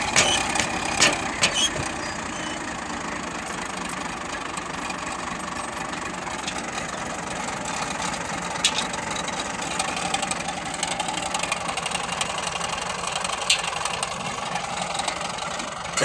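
Tractor engine idling steadily, with a few sharp metallic clicks and clinks as the cultivator's hitch pins and lower links are worked into place on the three-point linkage.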